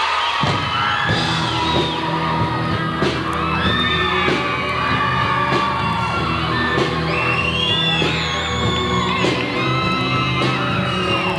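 High school rock combo playing live, with held low notes coming in just after the start and a few sharp drum or cymbal hits, while the audience whoops and yells over the music.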